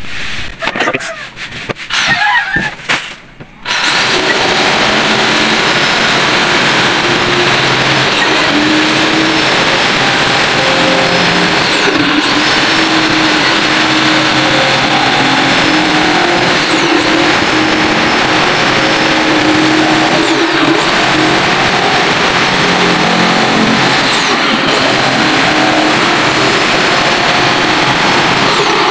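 Corded INGCO jigsaw cutting through phenolic formwork plywood: a few knocks, then the saw starts about four seconds in and runs steadily to the end, its high motor whine dipping briefly every few seconds as the blade loads up in the cut.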